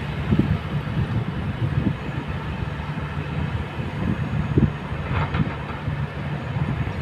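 Kobelco hydraulic excavators' diesel engines running steadily with a low rumble. A little after five seconds in, stones clatter and scrape as a bucket digs into a gravel and rock pile.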